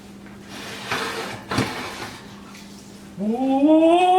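Oven rack and baking pan being handled, a shuffle and a short metal knock about one and a half seconds in, over a steady low hum. Near the end a long, loud, drawn-out cry rising in pitch, an excited "whoa".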